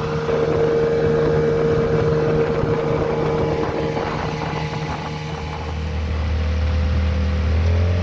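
Outboard motor of a small boat running steadily under way, over a constant rushing noise. About five seconds in, its note gives way to a lower hum that grows louder.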